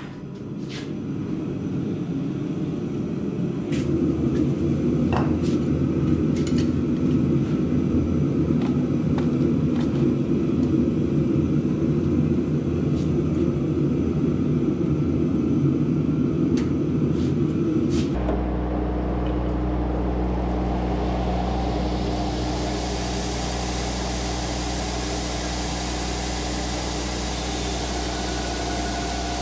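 A steady low rumbling noise for the first half, then an electric belt grinder running with a steady hum. From about twenty seconds in, a hiss joins it as steel is ground against the belt, throwing sparks.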